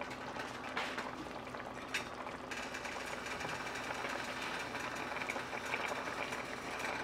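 Pot roast sauce simmering in an uncovered pan: a steady low hiss that thickens a little about two and a half seconds in, with two light clicks of a fork against the pan in the first two seconds.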